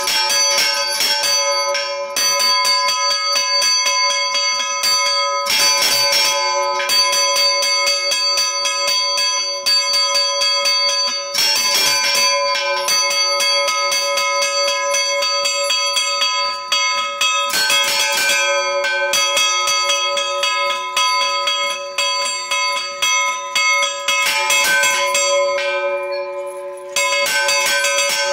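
Two bronze church bells rung by hand, their clappers pulled on chains to strike fast and continuously in the traditional Extremadura style, with the bells' notes ringing on between the strokes. About 25 seconds in the strokes briefly thin out, then return at full pace.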